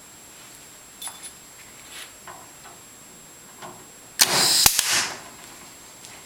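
A few light clicks of metal parts being handled. A little after four seconds comes one loud, short rush of noise with a sharp snap in it, consistent with the clip gun firing to fasten a float hanger onto the wire cage.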